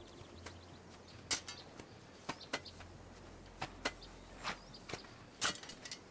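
Several steel shovels digging into dry soil: irregular scrapes and crunches as the blades bite into earth and stones, the sharpest about a second in and near the end.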